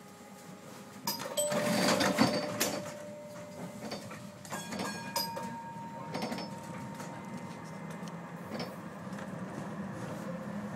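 Vienna Type E1 tram at a stop and pulling away. A cluster of clicks and clunks with short ringing tones comes about a second in and again around four to five seconds, then a steady low running hum as the tram gets under way.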